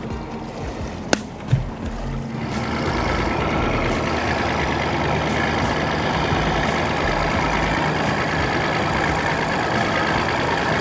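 A boat under way: a steady rush of wind and water with a motor hum, swelling in about two seconds in, after two sharp clicks.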